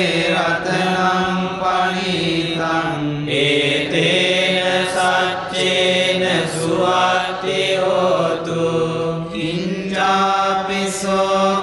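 Sinhala Buddhist pirith: Pali protective verses chanted on a steady, droning reciting pitch, with the line rising and falling around it.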